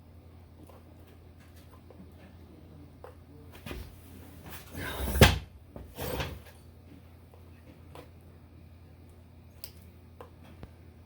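Handling noises of hands working on the motorcycle's wiring: a cluster of rustles, scrapes and knocks about four to six seconds in, loudest just past the middle, with a few light clicks and a low steady hum.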